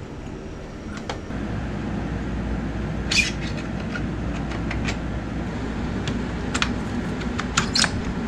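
Sharp metallic clicks and clatters of a road bike being handled on a Wahoo KICKR direct-drive trainer, over a steady low rumble that starts about a second in.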